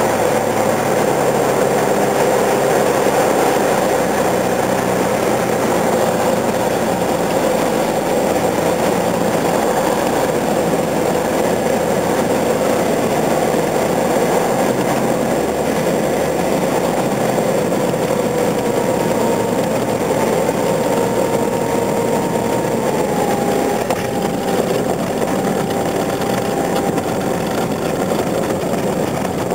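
Engine and propeller of a single-engine light aircraft, heard from inside the cockpit as a steady drone on the landing approach. About two-thirds of the way through, the note drops as power is eased back for the landing.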